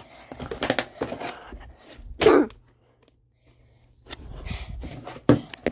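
A person's breathy vocal noises, with one short grunt falling in pitch about two seconds in, and a few soft clicks.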